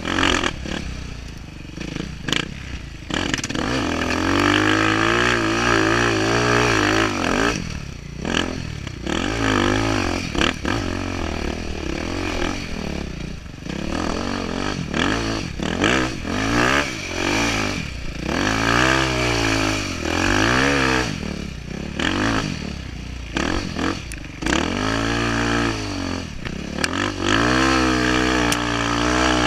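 Dirt bike engine revving up and dropping back over and over as the rider works the throttle on a rough trail. Knocks and rattles from the bike jolting over the ruts are mixed in.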